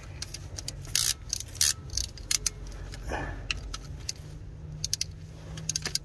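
Irregular metallic clicks and clinks of a wrench turning a glow plug out of a diesel engine's cylinder head, a few sharper clicks standing out, over a steady low hum.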